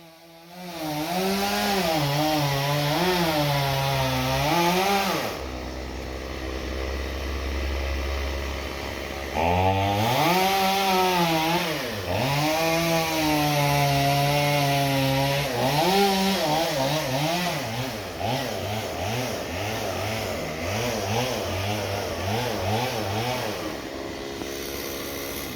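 Two-stroke chainsaw running at high revs, its engine pitch rising and falling as it cuts. It drops back to idle for about four seconds a quarter of the way in, then revs up again. In the later part the throttle is blipped quickly, several times a second.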